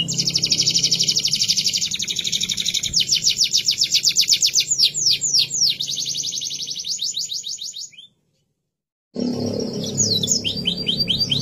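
Domestic canary singing long fast trills of rapidly repeated, falling high notes that shift into slower rolls. The song breaks off abruptly for about a second near the end, then the trilling resumes.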